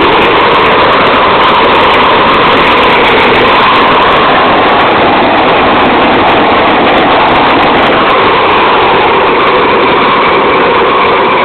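A 500,000 BTU propane torch fed from a 100 lb cylinder, burning at full flame: a loud, steady rush of burning gas like a jet engine.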